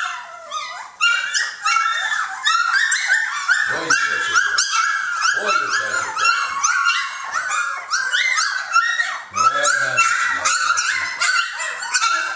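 A litter of three-week-old Jamthund (Swedish Elkhound) puppies whining and yelping: many short, high-pitched cries overlapping without a break.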